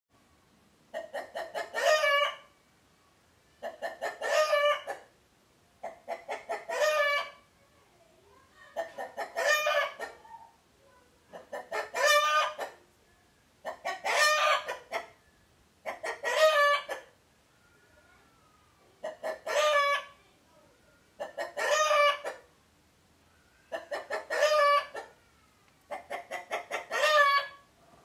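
A rooster crowing eleven times, about every two and a half seconds. Each crow is a quick run of short stuttered notes ending in a longer, louder note.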